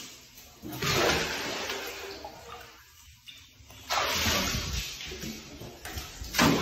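A cat splashing in a bathtub full of water: rushes of sloshing and splashing about a second in, again from about four seconds in, and a short loud splash near the end.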